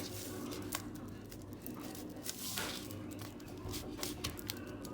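Fingers pressing and patting shortcrust tart dough into a tart tin: soft squishing and handling noise with a few faint taps.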